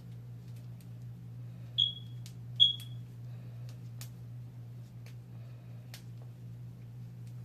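Two short, high electronic beeps about a second apart, over a steady low hum with scattered faint clicks.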